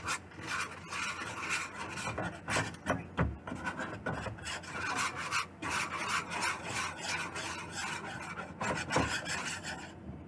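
Wire whisk scraping against a metal mixing bowl as it beats a wet batter of seasoned flour, egg and milk, in quick, repeated strokes, several a second.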